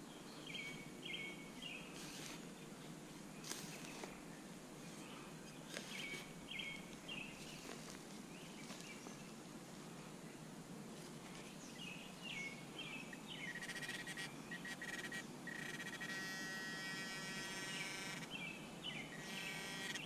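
Serrated digging knife cutting and scraping into soil and roots in short strokes, with small birds chirping in short groups. A steady buzzing tone joins in the last several seconds.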